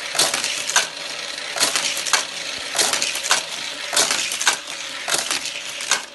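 Battery-powered booster of a Hot Wheels toy track whirring, with a die-cast toy car clattering through it on each lap of the loop. Each pass brings a pair of sharp clacks, about every 1.2 seconds.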